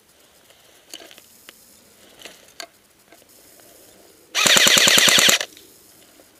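Airsoft gun firing one rapid full-auto burst of about a dozen shots lasting roughly a second, about four and a half seconds in. A few faint single clicks come before it.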